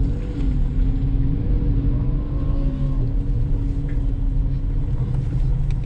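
2019 Jeep Wrangler JL driving over dirt: its engine running with a steady drone over a low rumble, the pitch shifting slightly as it moves.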